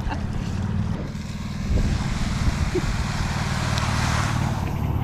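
Golf cart running steadily: a low, even hum under a broad rush of noise, getting a little louder a couple of seconds in.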